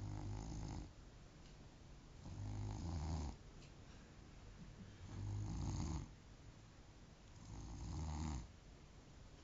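A sleeping man snoring: four snores, each lasting about a second, evenly spaced about two and a half seconds apart, with quiet breathing between them.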